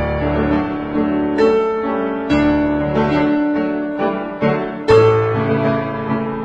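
Background instrumental music: a slow melody of struck notes, one about every second, each ringing on.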